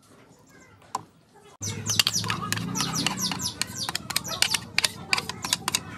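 Spatula scraping and tapping against the inside of a blender jar as thick mayonnaise is emptied into a bowl. It starts suddenly after about a second and a half of quiet, as a quick run of clicks and squeaks.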